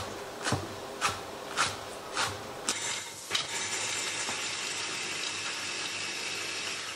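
A knife chopping spring onions on a wooden cutting board, about two chops a second, five in all. Then, from about three seconds in, steady sizzling of chicken pieces frying in a cast-iron skillet.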